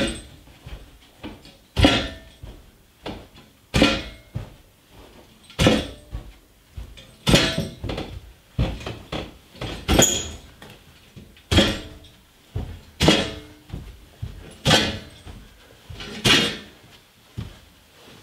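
Heavy wooden log slab thumping down carpeted stairs one step at a time: a heavy thump about every two seconds, with lighter knocks in between, stopping near the end.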